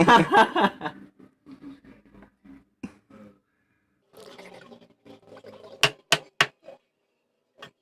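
Kitchen knife knocking on a cutting board while vegetables are chopped: three sharp knocks in quick succession about six seconds in and one more near the end, with quieter scattered clicks and handling sounds between.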